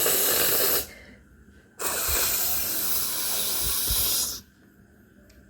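A woman blowing her nose hard, two long forceful blows: one that ends about a second in, then a longer one of about two and a half seconds.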